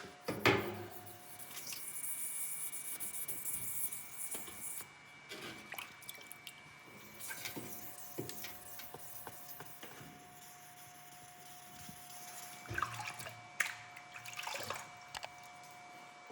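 Water dripping and splashing with scattered light clicks, typical of a knife blade being wet-sharpened. About two seconds in there is a few seconds of high scraping hiss, and a faint steady hum runs underneath.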